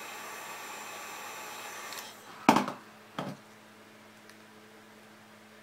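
Hot-air blower running steadily for about two seconds as it heats the edge of the iPad 2's glass to soften the adhesive, then it stops. This is followed by one loud knock and a smaller one.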